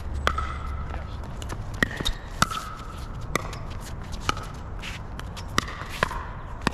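Pickleball rally: a quick run of sharp hollow pops from paddles striking the plastic ball and the ball bouncing on the court, about nine hits in under seven seconds.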